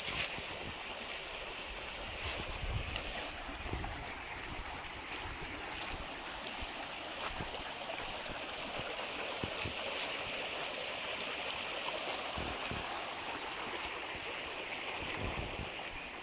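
Shallow rocky brook running over stones: a steady rushing babble of water. A few low thumps are scattered through it.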